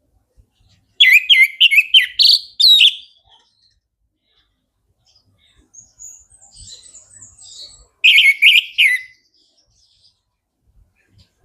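Orange-headed thrush singing: a loud, rapid phrase of varied notes about a second in, soft high twittering, then a second shorter loud phrase near the end.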